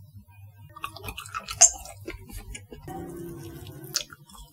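Close-miked ASMR bites and chewing of a spicy bean-curd tendon strip (latiao): scattered small wet clicks and crackles, with a sharper crunchy click near the end as it is bitten.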